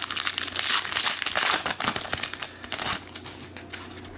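Plastic trading-card pack wrapper crinkling as a pack is torn open and handled. The crackle is dense for about three seconds, then thins out.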